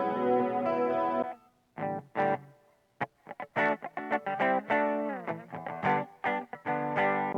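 Electric guitar played through a Boss GT-100 multi-effects processor: a held chord that stops about a second in, then after a short gap a run of short picked notes with a falling slide near the middle.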